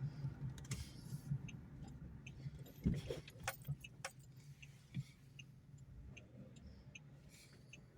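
Car cabin while driving: a low steady engine and road hum with scattered light clicks and rattles, and a few sharper knocks around three to five seconds in.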